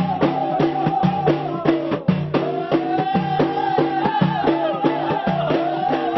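Ahidous music: men striking bendir frame drums in a fast, even rhythm while they chant together in a drawn-out, wavering line.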